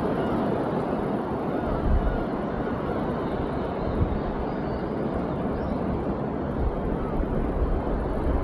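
Steady wash of surf on a sandy beach, with wind rumbling in gusts on the microphone.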